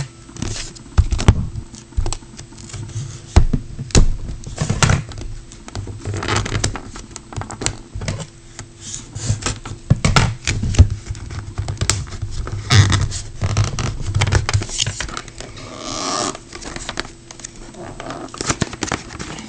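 Plastic shrink wrap being torn and crinkled off a sealed box of trading cards as the cardboard box is handled. It is an uneven run of sharp rustles, scrapes and taps.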